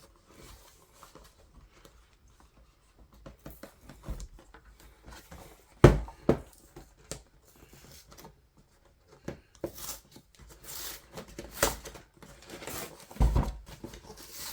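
Box and packaging being handled and opened by hand: scattered taps and knocks, a sharp thump about six seconds in, then rustling and crinkling of packaging through the second half, with another thump near the end.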